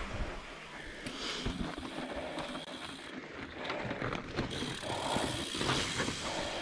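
Mountain bike freehub ticking rapidly as the bike coasts.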